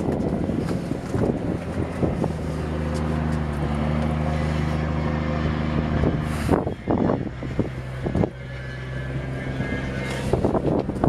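A boat engine running steadily, a low hum made of several held tones. The hum thins out about six and a half seconds in, and rustling and knocks from handling the microphone come near the start and end.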